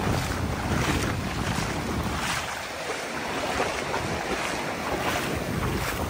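Small Atlantic surf washing over shallow sand, a steady hiss of moving water. Wind buffets the microphone with a low rumble that eases briefly about two seconds in.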